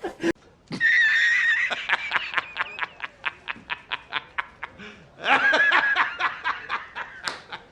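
A person laughing in two bouts of rapid giggles: the first starts about a second in and trails off over three seconds, and a shorter one follows about five seconds in.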